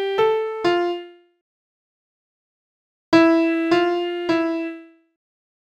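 Single piano notes from notation software's sampled piano sound, played one at a time: two notes near the start, a pause of about two seconds, then three more notes about half a second apart, each ringing briefly and dying away. The notes are played into a selected beat to rewrite its rhythm.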